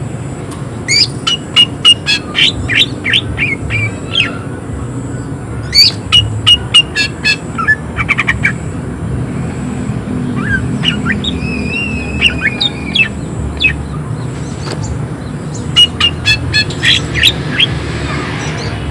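Greater green leafbird (cucak ijo) singing harsh, rapid 'shooting' phrases: three bursts of quick sharp notes, with a wavering whistled phrase between the second and third. A steady low rumble runs underneath.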